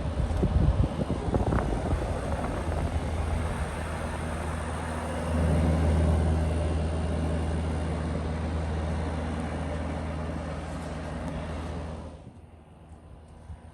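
A 2019 Frigidaire 8,000 BTU window heat pump running in cool mode: the rush of the fan's airflow over a steady low compressor hum. The hum grows louder about five seconds in, and the whole sound drops off sharply near the end.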